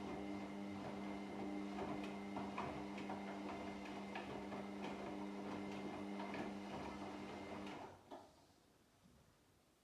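Front-loading washing machine on a wash cycle: its drum motor hums steadily while the tumbling laundry makes a stream of small clicks and ticks. About eight seconds in the motor cuts off and the drum pauses, leaving only a faint click or two.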